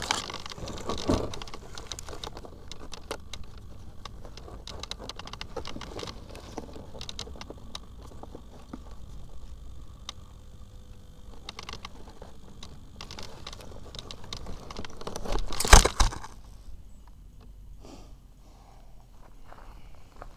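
Close handling noise of hands working on a foam RC model plane and its cables on dry grass: rustling, small clicks and scrapes, with one loud half-second rustle about three-quarters of the way through.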